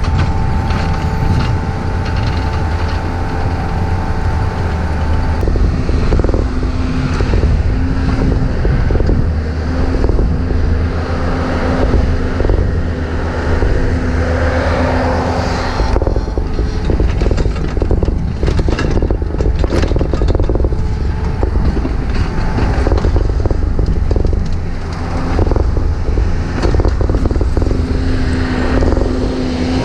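Takeuchi TB153FR mini excavator working: its diesel engine runs steadily under load, with hydraulic whine coming and going and repeated scrapes and knocks of the bucket in dirt and broken concrete.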